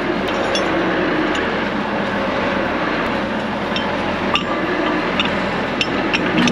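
Large tracked tractor's diesel engine running steadily as it backs up to hitch onto the air drill. In the second half come a few sharp metal clinks from the hitch pin being handled.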